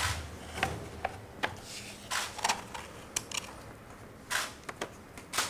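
Old, stiff rolled paper crackling and rustling in short, irregular bursts as gloved hands unroll it and press it flat.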